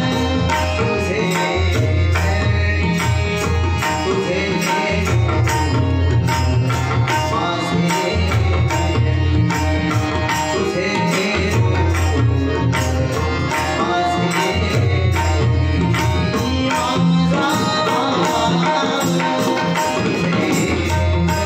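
Bhajan accompaniment: tabla and pakhavaj drumming a dense rhythm, with deep resonant bass strokes and a melody line running above.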